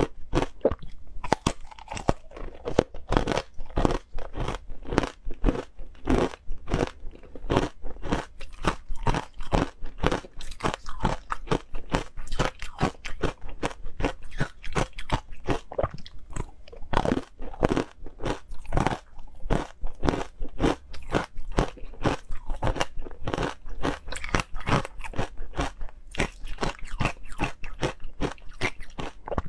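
Hard, green-coloured frozen ice being bitten and chewed, picked up close by a clip-on microphone: a dense run of sharp crunches, several a second, with no pause.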